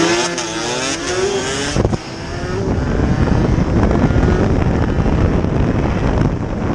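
Two-stroke 125 cc motorcycle engines revving, their pitch rising and falling. About two seconds in the engine note gives way to a loud, even rush of noise as the bike speeds up.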